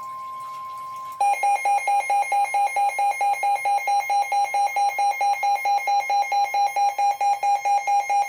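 NOAA Weather Radio's 1050 Hz warning alert tone, a steady single tone. About a second in, a weather radio receiver's built-in alarm takes over, beeping rapidly at about five beeps a second. Together they are the alert that a severe thunderstorm warning is being broadcast.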